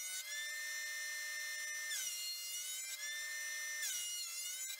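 Benchtop jointer running with a high whine while a block of cypress pine is pushed across its cutter head. The whine sags in pitch and picks back up roughly every second as the wood is fed over the blades.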